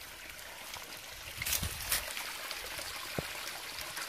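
A small woodland stream running, with water pouring from a rusty pipe into a shallow pool; a couple of brief knocks come around the middle.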